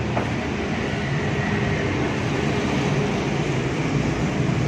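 An electric fan running fast and steadily, a constant rush of air with a low hum under it.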